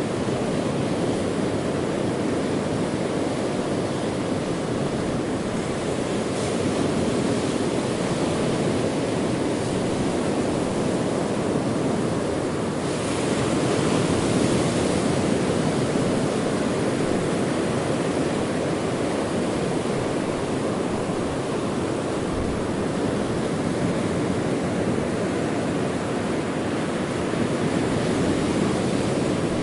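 Ocean waves washing in, a steady rush that swells a little louder about halfway through.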